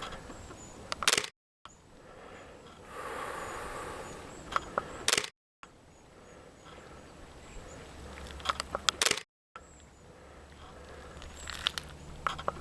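Camera clicks as photos are taken, a cluster of sharp clicks about every four seconds, each followed by a brief cut-out of all sound, over faint wind.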